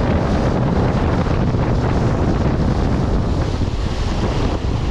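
Wind buffeting the microphone over the steady low hum of a small boat's engine and the rush of sea water.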